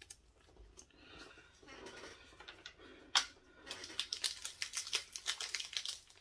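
Trading cards handled on a table, then a foil Pokémon booster pack wrapper crinkling and being opened from about four seconds in, with a single sharp click shortly before.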